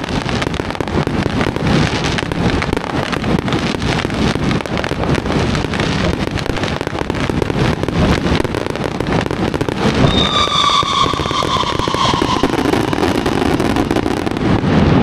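Fireworks going off in a rapid, continuous barrage of crackling bursts and bangs. About ten seconds in, a high whistling tone sounds for a couple of seconds, falling slightly in pitch.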